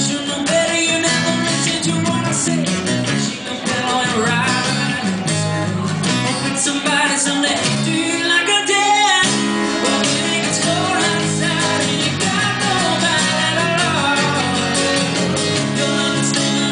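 Live acoustic band performing: strummed acoustic guitars over a stepping bass line, with a lead voice singing. The low bass part drops out for about a second near the middle, then comes back in.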